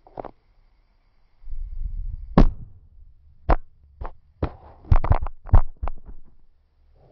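A smartphone dropped onto the floor: a low handling rumble, then a loud knock and a quick run of about eight knocks and clatters as it bounces and comes to rest.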